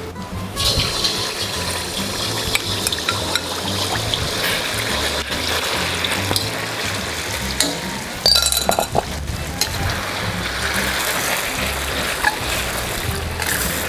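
Marinated chicken breast strips frying in hot oil in a wok, a steady sizzle that starts about half a second in, with clinks of a metal utensil against the wok. Background music plays underneath.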